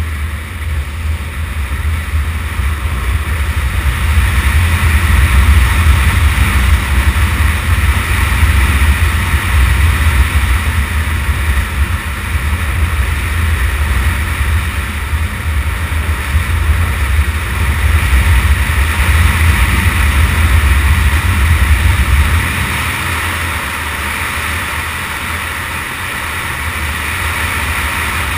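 Motorcycle riding on a gravel road, heard through a bike-mounted action camera: heavy wind rumble on the microphone over the engine and the tyres on gravel. The rumble eases off about three quarters of the way through.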